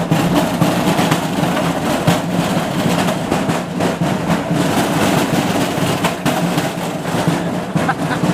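Hardware-store cart rolling across the floor, its wheels and frame rattling and clattering steadily. The noise is super loud.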